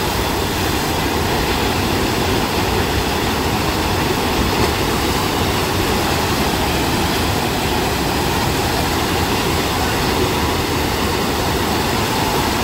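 Steady, loud rush of water pumped in a thin sheet up the slope of a surf-simulator wave ride.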